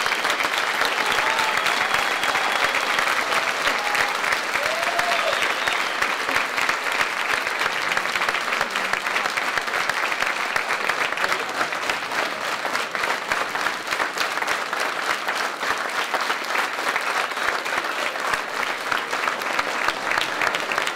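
Large audience applauding steadily, a long ovation of many hands clapping at once.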